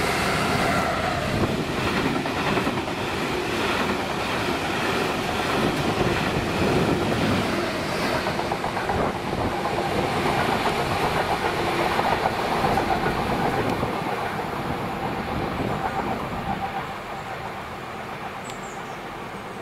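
Class 66 diesel locomotive hauling a freight train past at close range: the EMD two-stroke engine running, and the wagon wheels clattering over the rail joints. The sound is steady and loud, then falls off sharply about three seconds before the end as a more distant train takes over.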